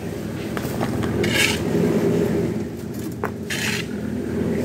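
An engine running steadily, with a hand tool scraping through loose stones twice, about two seconds apart, and a single sharp click just after three seconds.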